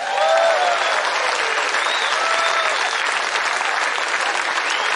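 A large outdoor crowd applauding, dense clapping that starts at once and holds steady.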